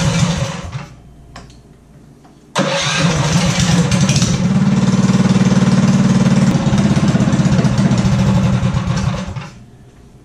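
Tillotson 212 single-cylinder four-stroke kart engine running, then dying away about a second in; it fires up again suddenly about two and a half seconds in, runs louder for a couple of seconds in the middle, and shuts off near the end.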